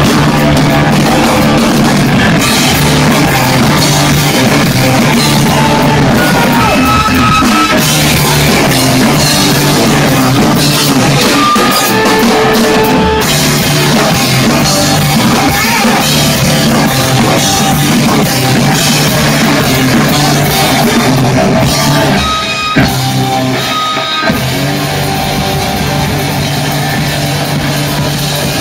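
Live hard rock played loud: an electric Les Paul guitar through a Marshall amp over a drum kit. A short break with two sharp hits comes a little past three-quarters of the way through, and then the band plays on.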